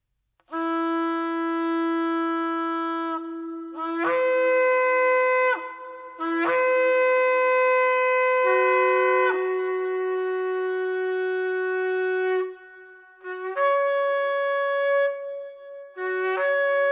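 Shofar blasts: a series of about six long held notes, some overlapping one another and several stepping up in pitch as they begin.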